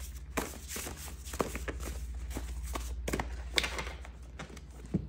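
A deck of reading cards being shuffled and handled: irregular sharp clicks and snaps, with a steady low hum underneath.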